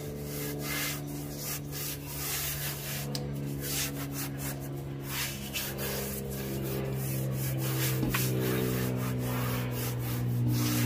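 Palms rubbing and pressing EVA foam decking sheets down onto a boat deck so the adhesive backing sticks: repeated swishing strokes of hands across the brushed foam surface, several a second, over low held tones.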